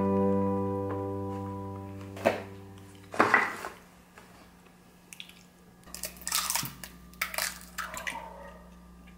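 An acoustic guitar chord rings out and fades over the first few seconds, with a couple of short knocks. Then come a few sharp taps and clicks as an egg is cracked open into a ceramic bowl, its white dripping in.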